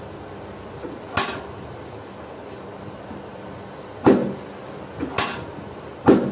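Four sharp knocks during a chiropractic adjustment, one about a second in and three close together near the end, each a quick thrust on the patient's back after a breath in and out.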